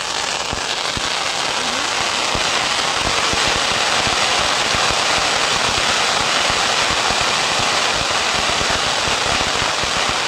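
Castillo, a Mexican fireworks tower, burning: a dense, steady crackle and hiss of sparks, thick with many small sharp pops. The sound grows a little louder over the first couple of seconds.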